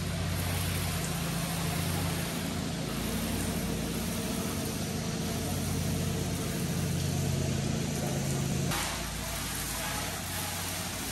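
Water hissing from a hand-held hose spray nozzle onto a truck's cab, over a steady low hum. The sound shifts abruptly about three-quarters of the way through.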